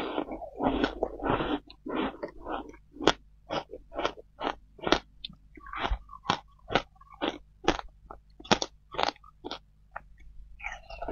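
Teeth crunching through shaved ice topped with passion fruit pulp, close to a clip-on microphone: a dense run of crunching at first, then sharp single crunches about two a second as the mouthful is chewed down, and a new bite near the end.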